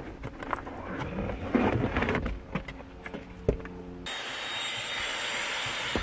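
Handheld cordless car vacuum: knocks and rattles as it is moved around the footwell while switched off, then it is switched on about four seconds in and runs steadily.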